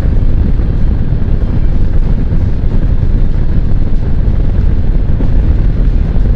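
Steady wind rush buffeting the microphone of a Kawasaki Vulcan cruiser motorcycle riding at road speed, mixed with the motorcycle's low running noise.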